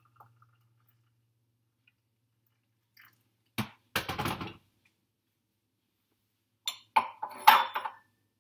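Knocks, clinks and scrapes from handling a metal teapot: a single knock and a short scrape about halfway, then a quick run of clinks and scrapes near the end, with near silence between.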